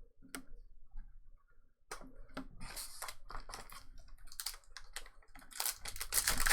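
Light clicks and rustling of trading cards being handled and shuffled, getting busier about two seconds in, with a foil pack wrapper crinkling near the end.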